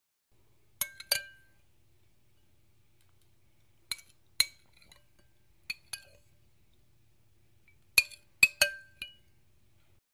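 Dishes clinking: about ten sharp, ringing clinks in small clusters, with pauses of a second or more between them.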